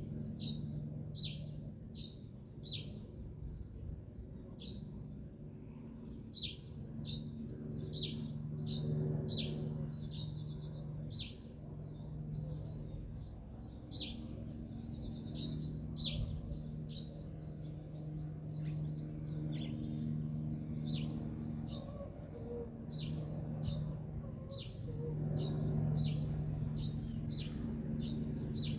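Songbirds chirping: one bird repeats a short, falling high chirp over and over, about one to two a second. Another bursts into rapid high trills twice, about 10 and 15 seconds in. A steady low hum runs underneath.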